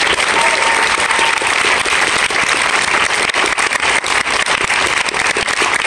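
Audience applauding, a dense, steady patter of many hands clapping, with a held whistle from the crowd for about a second near the start.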